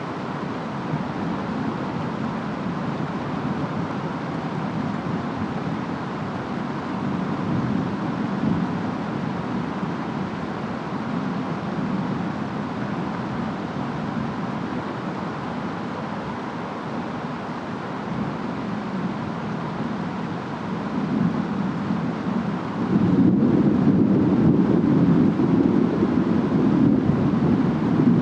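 Distant rainstorm: a steady rush of rain and wind, with a deep rumble swelling louder about 23 seconds in.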